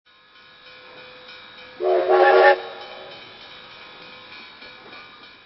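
Steam locomotive sound: a steady hiss of steam with one short, loud whistle blast about two seconds in.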